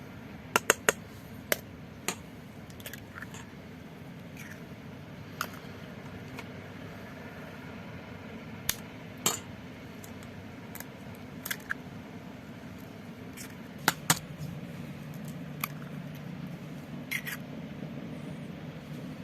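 Sharp clicks and light taps of small hard objects, about a dozen at irregular intervals, over a steady low hum that grows louder about two-thirds of the way through.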